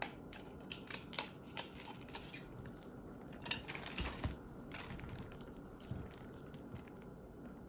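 Faint, irregular small clicks and light crinkling of a plastic false-eyelash case and its packaging being handled.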